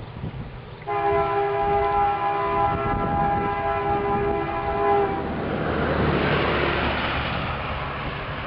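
Diesel freight locomotive's multi-chime air horn sounding one long, steady chord of several notes for about four seconds, starting about a second in. It is followed by the broad rushing rumble of the train running.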